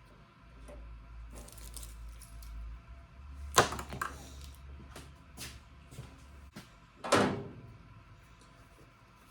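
Hand tools and small parts being moved and set down: scattered clicks and clanks, with two louder knocks about three and a half and seven seconds in.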